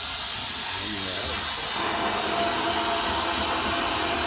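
DIY wet-blasting (vapor-blasting) cabinet firing a compressed-air spray of water and glass-bead media at an engine crankcase, a loud steady hiss that cuts in suddenly at the outset.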